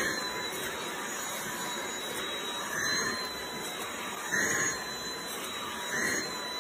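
Cordless stick vacuum cleaner running steadily with a high whine. The sound swells briefly every second or two as the roller head is pushed over a cat lying on the floor.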